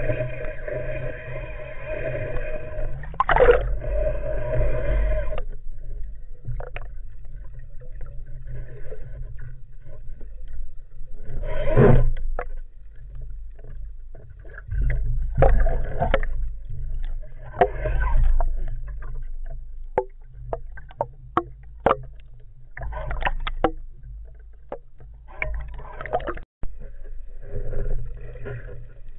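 Music plays for the first five seconds, then stops. After it come irregular bursts of water noise, sharp clicks and knocks and a low rumble, as picked up by a spearfisher's camera in and around the water.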